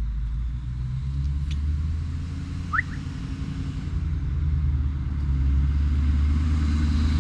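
A motor vehicle's engine running nearby: a steady low rumble that grows louder after about five seconds. A short rising squeak sounds once, about three seconds in.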